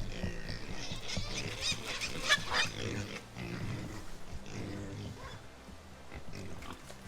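Wild hogs squealing and grunting, with shrill squeals about one to three seconds in, then lower grunts.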